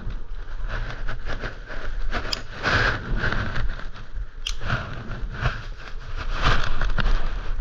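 Irregular scraping and rustling handling noises, with a few sharp clicks.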